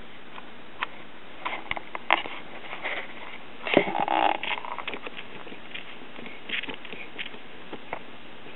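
Realtone six-transistor pocket AM radio's speaker putting out steady static hiss with scattered crackles, a louder crackling patch about four seconds in; no station is coming through, the sign of a radio not yet receiving.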